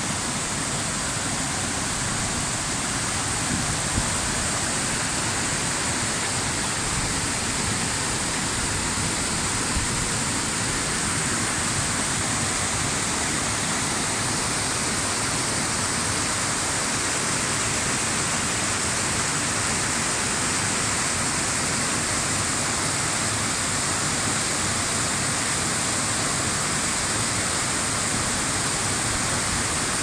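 Mountain stream cascading over boulders in small waterfalls: a steady, even rush of water.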